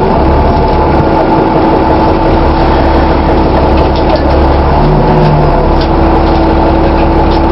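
Dennis Trident double-decker bus running, a loud low drone with a steady tone over it and some faint mechanical clicking. This is the noise that is called a strange sound.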